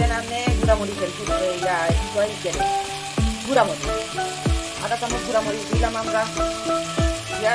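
Vegetables sizzling as they fry in oil, stirred and scraped with a metal spatula in a metal pot. Background music with a steady beat plays over it.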